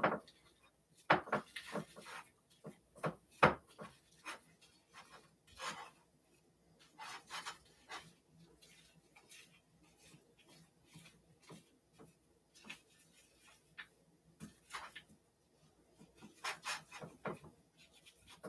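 Rubber-gloved hand rubbing dry seasoning into raw tuna steaks: faint, irregular soft taps and rubbing sounds, with a short cluster of them near the end.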